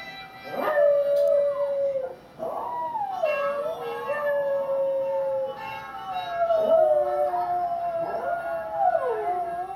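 A miniature pinscher howling along with a dog howling on the television: long, wavering howls that slide up and down in pitch, with two howling voices overlapping in the second half.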